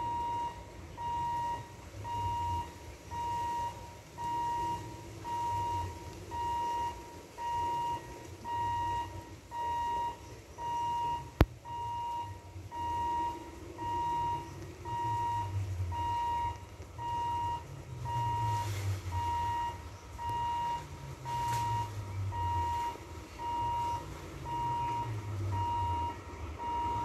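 An electronic beep repeating steadily about once a second. A single sharp click comes near the middle.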